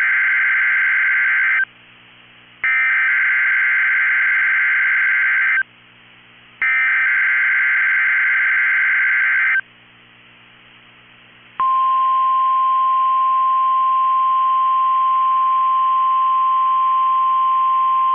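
NOAA Weather Radio Emergency Alert System test signal for a Required Weekly Test. It opens with three buzzing digital data bursts of the SAME header, each about three seconds long with a second's gap between them; the first is already under way. After a short pause, the steady 1050 Hz warning alarm tone starts and holds.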